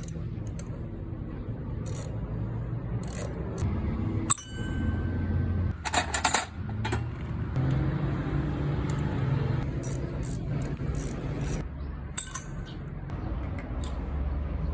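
Metal tools and parts clinking and clicking against each other, with one ringing metallic clink about four seconds in and a quick run of clicks about six seconds in, over a steady low hum.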